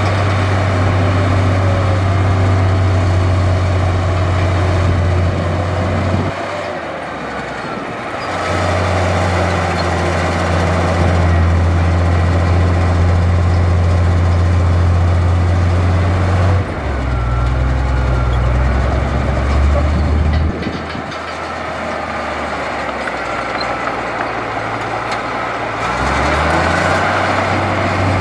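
Heavy diesel engine of earthmoving machinery running under work, its deep drone falling away twice and picking back up, with a shift in pitch midway. Faint squeals sit above it.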